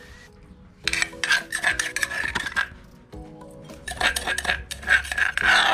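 Metal spoon scraping and clinking against a mortar and a salad bowl as dressing is scooped out and spooned over, in two runs of clatter, with background music.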